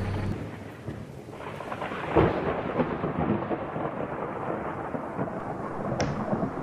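Thunderstorm sound: a steady rain-like hiss with a loud crack of thunder about two seconds in and a second, sharper crack near the end.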